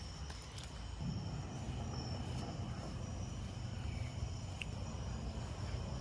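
A steady low rumble with faint, thin high-pitched tones held above it and a few soft clicks.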